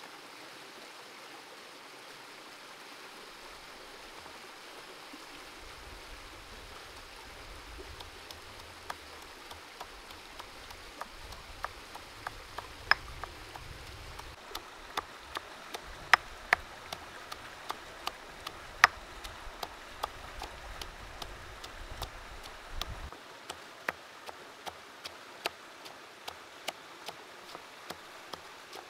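Stone pestle knocking against a stone mortar, pounding chillies: sharp irregular knocks, roughly one or two a second, starting several seconds in. Under them runs a steady rush of flowing stream water.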